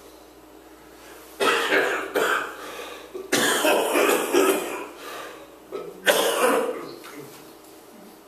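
A man coughing in a fit of several coughs, starting about a second and a half in and ending about a second before the end.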